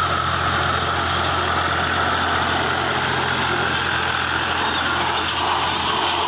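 Tractor engine running steadily under load while its rear-mounted two-disc rotary mower spins and cuts grass: a constant low engine hum with a steady higher whir on top.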